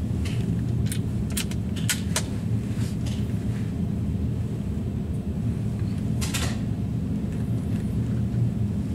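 Steady low wind rumble on the microphone, with a few light clicks in the first three seconds and another about six seconds in.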